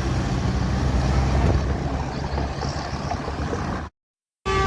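Low engine rumble and road noise of passing buses and traffic. Near the end it cuts off abruptly to silence for about half a second. A bus's multi-tone telolet horn starts sounding with several steady notes as it ends.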